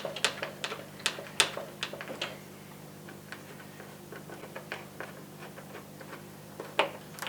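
Irregular sharp clicks and taps of plastic dishwasher-door parts being handled and taken apart, many in quick succession in the first two seconds, then sparser, with one louder click near the end. A faint low steady hum runs underneath.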